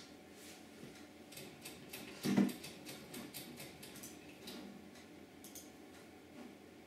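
A hand settling on a table and handling a computer mouse: a quick run of light ticks and clicks with one dull thump, the loudest sound, about two seconds in, then a couple of mouse clicks near the end.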